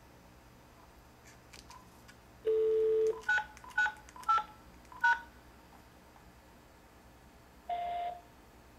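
Uniden cordless phone handset being dialled. A few soft key clicks come first, then a brief dial tone of about half a second, then four short DTMF keypad tones as the number is keyed in. A short single tone sounds near the end.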